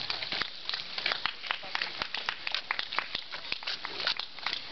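Water from a hose spraying in an arc and pattering onto wet asphalt: an even hiss with dense, irregular ticks of splashing drops.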